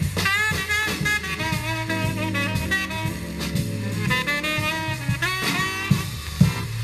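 A 7-inch 45 rpm vinyl single playing on a turntable: an instrumental break in a soul song, a lead instrument playing a melody with bending notes over a steady bass line and drums.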